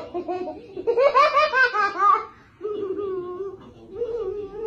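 Laughter: a young child laughing, with a loud run of laughter about a second in, then quieter drawn-out voice sounds.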